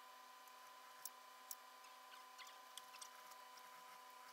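Near silence: a steady faint hum with a few small sharp clicks and faint scratchy rustles from hands working a fur pelt at the needle of an industrial sewing machine. The machine itself is not stitching.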